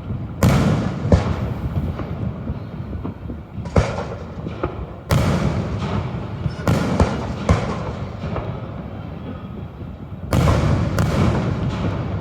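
Aerial fireworks shells bursting: a run of loud booms, the biggest about half a second in, about five seconds in and about ten seconds in, with sharper cracks between them and a low rumble trailing each burst.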